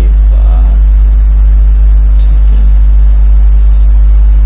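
Loud, steady low hum that does not change, with fainter steady tones above it. A faint murmur of a voice comes about half a second in.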